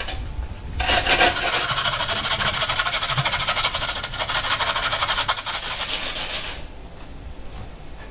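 A red onion being grated on a stainless steel box grater: a continuous rasping scrape that starts about a second in and stops after about six seconds.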